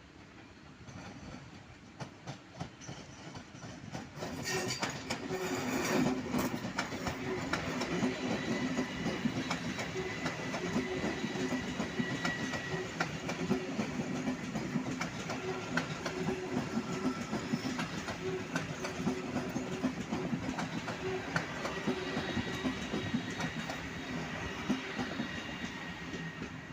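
A train passing close by, its wheels clicking rapidly over rail joints, with a steady mechanical hum. It grows loud about four seconds in and stays loud.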